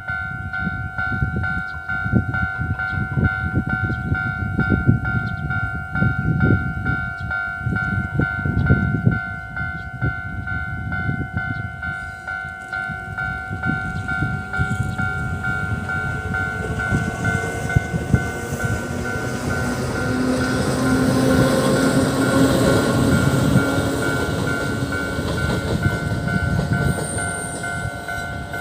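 Level-crossing warning bell ringing in a fast, even, two-tone pulse throughout. Under it, a single E300-class electric locomotive running light approaches and passes: its rumble builds from about halfway, is loudest about three-quarters of the way in, and eases off near the end.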